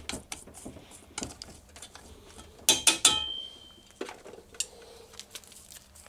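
A wooden spatula scrapes and clicks against a stainless steel mixing bowl as seasoned broccoli is stirred. A few sharp metallic clanks come about three seconds in, with a short ringing from the steel bowl, and a duller knock follows about a second later.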